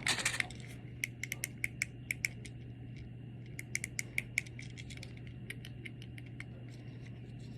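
Small plastic clicks from the buttons of a remote-control fidget toy being pressed, in two quick runs of about a dozen and half a dozen clicks, then a few fainter ones, over a steady low hum.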